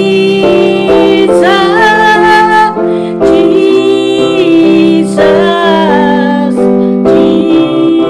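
A woman singing a slow worship song with vibrato on held notes, accompanying herself with sustained chords on an electronic keyboard.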